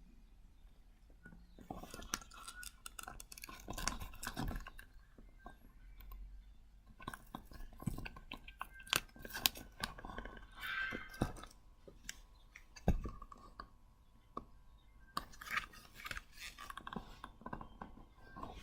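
A cheap wallet being handled and opened, rustling and clicking in three spells of crisp crinkling with short pauses between.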